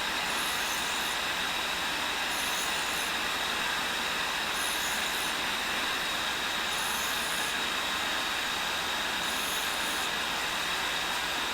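Cincinnati tool and cutter grinder running steadily, its diamond wheel grinding a carbide boring bar fed in about two thousandths at a time. A high hiss swells and fades about every two seconds over the even running noise.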